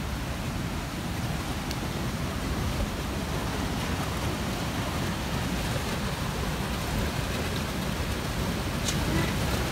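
Steady rush of sea surf breaking on a rocky shore, with a low rumble underneath and a slight swell in level.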